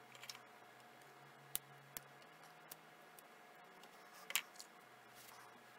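Faint, scattered small clicks and ticks of metal pins and a finger-looped metal hand tool being handled while pinning a hide to a form, the loudest click about four seconds in.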